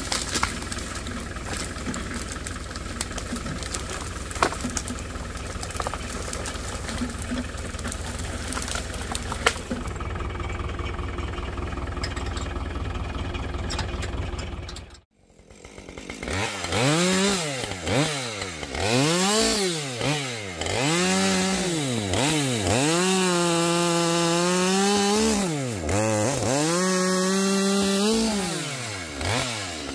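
Case tractor's engine idling steadily; then, about halfway through after a cut, a gas chainsaw is revved up and down several times and held at full throttle as it bucks a snow-covered birch log.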